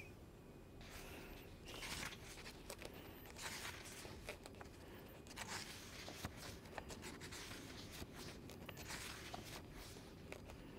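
Faint rustling of book pages being leafed through, in irregular short scrapes and flicks of paper.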